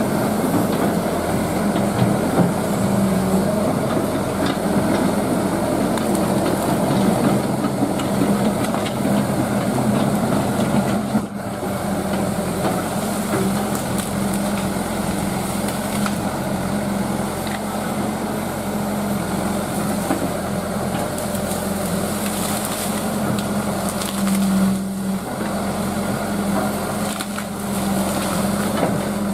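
Excavator's diesel engine running steadily under load, with branches and brush cracking and splintering as the machine crushes through vegetation.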